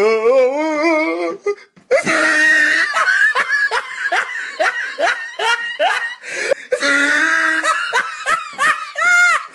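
A woman laughing hard: a drawn-out wavering cry at first, then after a short pause a long, loud fit of pulsing laughter, about two or three ha's a second, ending in a high squeal.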